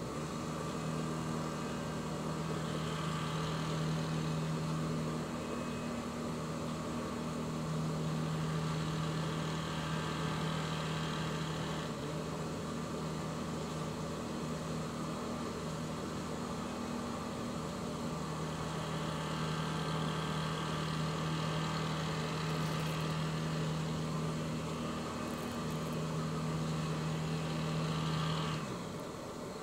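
A Norman 20 Conquest cruiser's engine idles steadily at low revs, with a hum that swells and eases every few seconds. The engine drops off just before the end.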